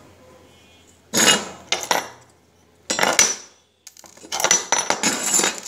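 Metal parts clattering and clinking as they are handled and moved on a workbench. There are several short rattling bursts, about a second in and again around three seconds, then a longer run of clatter near the end.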